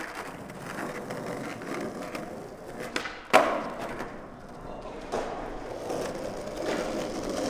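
Skateboard wheels rolling, with a sharp clack of the board about three seconds in and a softer one about two seconds later.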